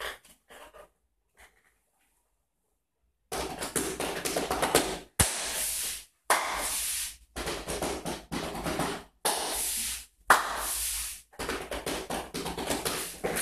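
A bag played as a percussion instrument: rhythmic crumpling, snapping and shaking, with long bursts of hissing crinkle between quick strokes. A few light taps come first, then a pause, and the playing starts about three seconds in.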